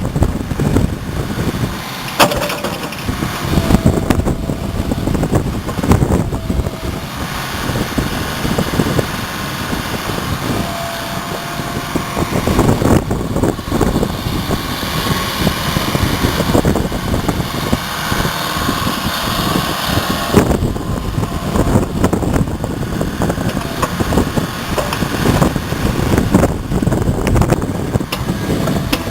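JCB 8085ZTS midi excavator's Isuzu four-cylinder diesel engine running hard, its note rising and falling with the hydraulic load. Brief whines come through now and then, along with occasional knocks.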